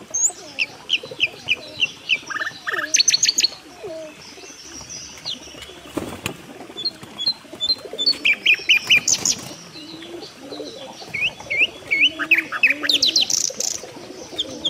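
Domestic pigeons cooing low in a loft, overlaid by several bursts of rapid, high-pitched chirping notes from birds, with a single sharp knock about halfway through.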